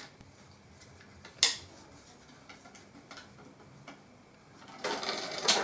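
Home-made rubber-band helicopter of paper and bamboo skewers: a single sharp click about a second and a half in, a few faint ticks, then a loose rattling clatter near the end as the toy is launched.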